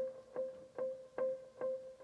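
Background music: a plucked string instrument repeating the same note about two and a half times a second.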